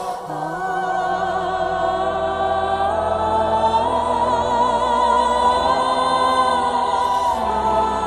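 Ambient music: long held, choir-like voices with a slight waver over a steady low drone. The chord shifts about three seconds in, and the notes slide down near the end.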